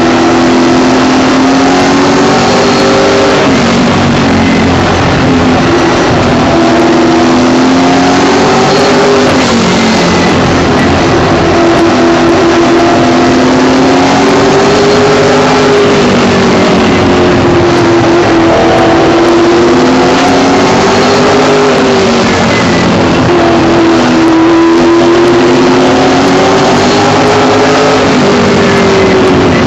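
Late model race car's V8 engine, heard loud from inside the cockpit, running hard at racing speed. Its pitch rises and falls in repeated swells a few seconds apart.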